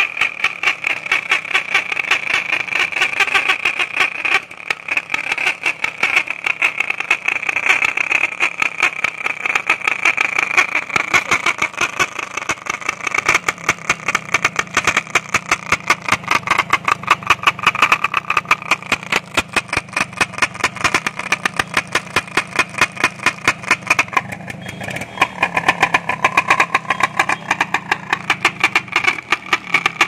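A plastic bhopu (toy trumpet horn) is held in a motorcycle's exhaust silencer with the engine idling. The exhaust pulses blow its reed, giving a loud, high buzzing honk that stutters rapidly in time with the engine's firing. About 24 seconds in, the horn's note drops lower.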